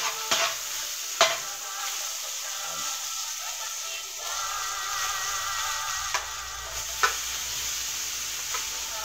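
Garlic, onion and other aromatics frying in a little cooking oil in a metal wok, sizzling steadily, while a metal ladle stirs and knocks against the wok a few times.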